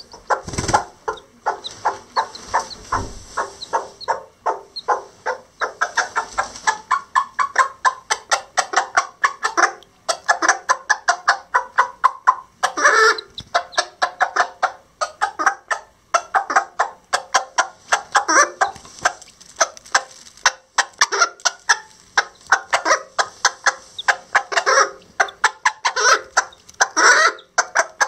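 Lavender Old English Game bantam hen clucking in a rapid, steady run of short clucks, about four a second: a mother hen calling to her newly hatched chicks.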